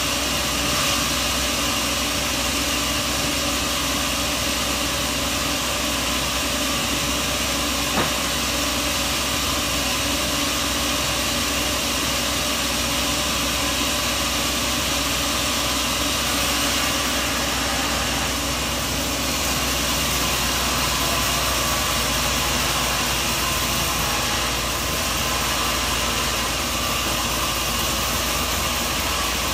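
Sawmill machinery running steadily, an unchanging mechanical drone with one sharp click about eight seconds in.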